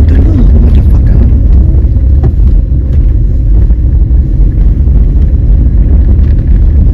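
Off-road 4x4 driving on a dirt trail: a steady low rumble of engine and tyres, with a few light knocks.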